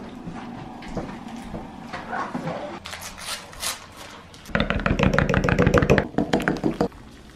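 Hot water poured from a gooseneck kettle into a ceramic mug, then, from about halfway through, a metal spoon stirring hot chocolate in a mug. The spoon clinks rapidly against the sides for a couple of seconds and is the loudest sound.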